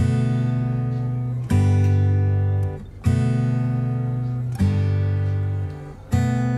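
Background music: a slow lullaby with a chord struck about every one and a half seconds, each ringing out and fading before the next.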